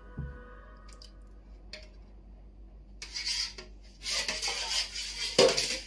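A metal spoon stirring and scraping in a plastic tub of wet, agar-thickened cat-food mixture, in scrappy bursts from about three seconds in, with a louder knock near the end.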